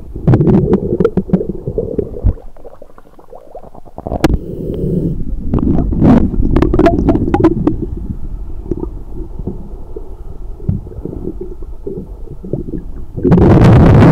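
Muffled underwater sound picked up by a camera in a waterproof housing as it is moved beneath a boat: rumbling water movement with scattered clicks and knocks. Near the end a sudden loud rushing noise sets in.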